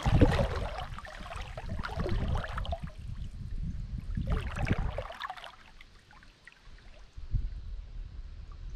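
Water sloshing and lapping against an aluminum boat hull, with rustles and knocks from a spinning rod and reel being handled for a cast. A short bump right at the start is the loudest sound, and it goes quieter after about six seconds.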